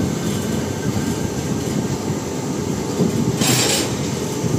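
Malabar Express passenger train in motion: steady running noise of the coaches on the rails, with a brief hiss about three and a half seconds in.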